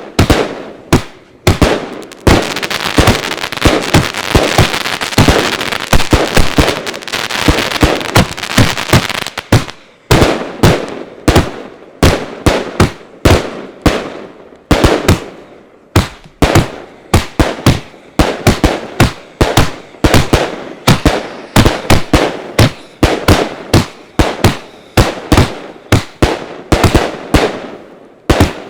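A consumer fireworks cake (battery) firing, heard from right beside the box. It starts with a few sharp shots, then a dense, unbroken barrage for several seconds, then a quick run of separate bangs, two or three a second.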